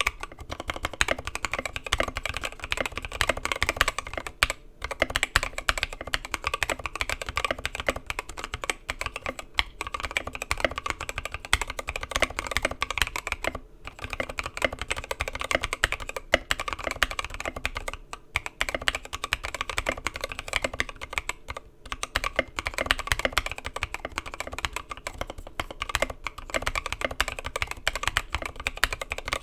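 Continuous fast typing on a Mark 65 custom mechanical keyboard with lubed, filmed Gateron Milky Yellow linear switches in an aluminum plate. It is a dense, steady stream of keystroke clacks, broken by a few brief pauses.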